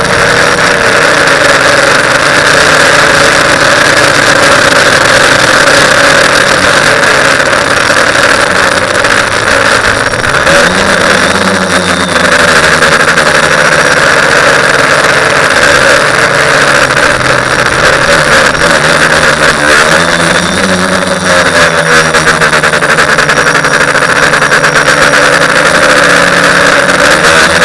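TBS Discovery quadcopter's electric motors and propellers buzzing in flight, the pitch rising and falling with throttle changes about ten seconds in and again about twenty seconds in.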